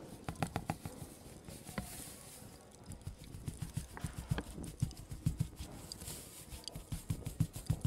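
A series of irregular soft knocks and clicks coming in short clusters, several in quick succession each time.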